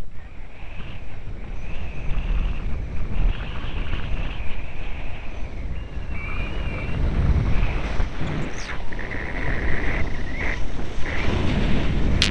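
Wind buffeting the camera's microphone while riding downhill, over the steady rough scrape and rumble of a snowboard on packed snow.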